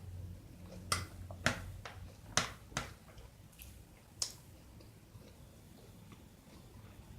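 Close-miked chewing of a lettuce salad: about five sharp wet crunches and smacks in the first half, then quieter chewing.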